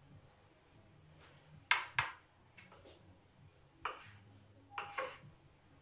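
Kitchen knife chopping peeled whole tomatoes on a plastic cutting board: a handful of irregular knocks as the blade strikes through to the board.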